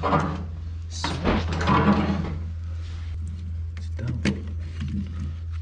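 Metal clutch parts of a scooter's variator clutch (spring, torsion-control ring and pulley) being handled on a workbench, with a few sharp clicks and knocks about four seconds in. Low indistinct voice sounds come before them, and a steady low hum runs underneath.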